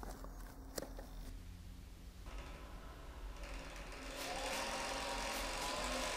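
Hangprinter cable-driven robot's motors winding its cables to move the hanging effector: a mechanical whirring that builds up from about two seconds in, with a steady whine in it. Before that come a few sharp clicks and knocks from the camera being handled.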